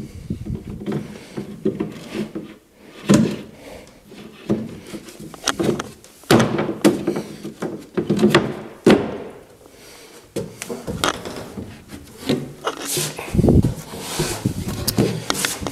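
Wooden engine-cowling panels being fitted onto their wooden frame: a series of separate knocks and bumps with wood rubbing and scraping on wood as the panels are set in place.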